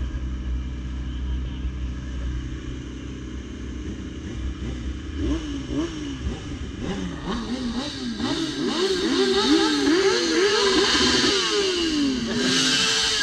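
Sport motorcycle engines idling with a low rumble, then revved up and down again and again from about five seconds in as bikes pull away, with a louder burst near the end.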